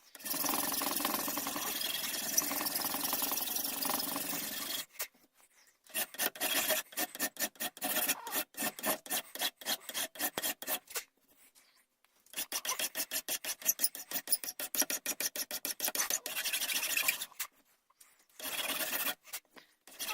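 Hand file or rasp shaping the horn muzzle cap on a wooden long rifle stock. A steady stretch of filing gives way to runs of quick back-and-forth strokes with short pauses between them.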